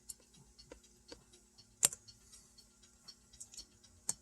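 Scattered light clicks at a computer while browsing through pictures, with a sharper click about two seconds in and another near the end, over a faint steady hum.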